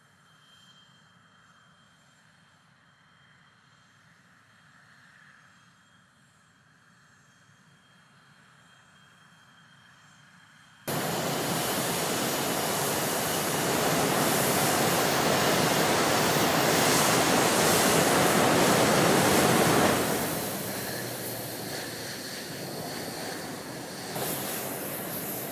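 Faint hiss and thin high whine of distant jet engines, then, from an abrupt jump about eleven seconds in, loud noise of a CF-188 Hornet's twin turbofan engines taxiing close by. It builds for several seconds and then eases off sharply about twenty seconds in.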